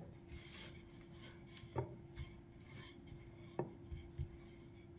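Wooden rolling pin rolling pita dough on a wooden cutting board: faint rubbing strokes with two light knocks.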